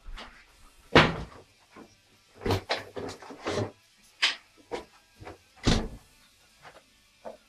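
A run of sharp knocks and thuds from a refrigerator door being pulled open and swung shut and things being handled inside it, the loudest about a second in and again near six seconds in.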